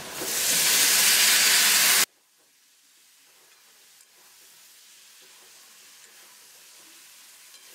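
Loud sizzle as chopped ridge gourd drops into hot oil and fried onion in a kadhai, cutting off abruptly about two seconds in. After that, only faint light ticks of a spatula stirring the vegetable in the pan.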